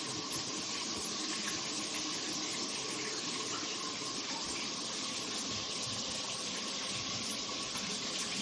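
Water spraying steadily from a handheld shower head.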